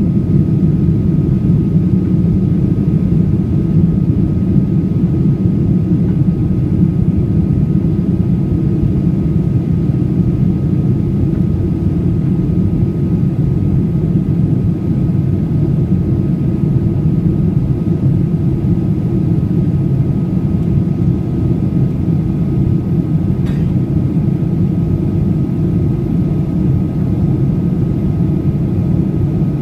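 Steady low drone inside the cabin of a Boeing 737-800 with its CFM56 jet engines running: engine and airflow noise, with a faint steady high tone running through it.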